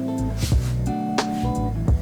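Background music: guitar playing plucked notes and strums over a low bass line.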